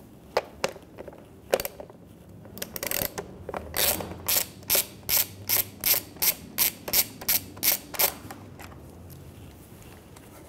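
A ratchet handle with a Torx T30 bit backing out the battery-cover bolts on a KTM 790 Adventure R. The pawl clicks on each back-swing, a few scattered clicks at first and then a regular run of about two to three strokes a second that stops about two seconds before the end.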